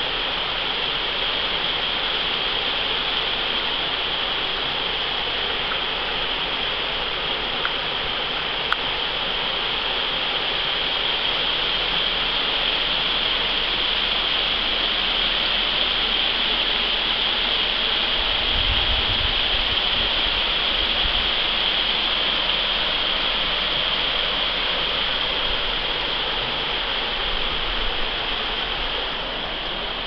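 Creek water rushing steadily over rocks, an even, constant hiss. A short low rumble comes about two-thirds of the way through.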